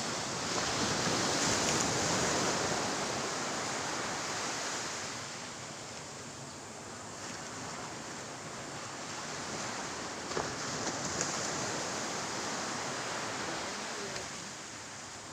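Ocean waves washing in, the rushing swelling and easing twice, with a few faint clicks near the middle of the second swell.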